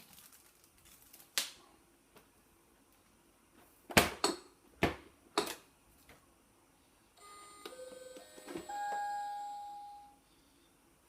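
Kitfort KT-503 robot vacuum's electronic chime plays a short melody of beeps at different pitches, ending on a longer note that fades out. It is preceded by several sharp clicks a second or so apart.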